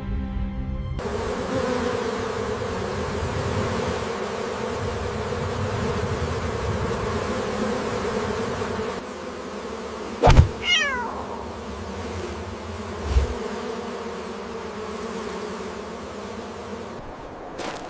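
A swarm of bees buzzing, a steady dense drone that grows quieter about nine seconds in. About ten seconds in there is a sharp knock and then a cat's meow falling in pitch, and a dull thump follows a few seconds later.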